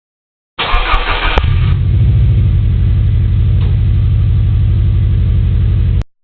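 A car engine sound effect: it starts with a short loud burst, settles into steady running with an even low pulse, and cuts off abruptly near the end.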